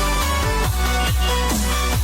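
Background electronic dance music with a steady beat and falling bass sweeps about twice a second.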